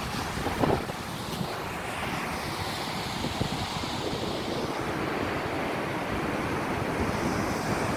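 Ocean waves breaking and washing on the shore, a steady rush of surf, with wind buffeting the microphone.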